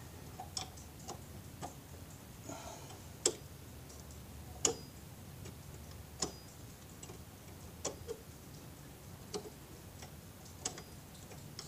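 Sharp metal clicks of a 13 mm box-end wrench on the 12-point bolts holding the hub assembly, at irregular intervals of about one a second as the wrench is worked around and reset on the bolt heads. The loudest click comes a little over three seconds in.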